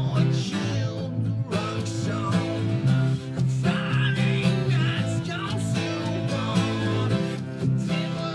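Live acoustic band music: an acoustic guitar strummed over held bass guitar notes, with a man singing from about a second and a half in.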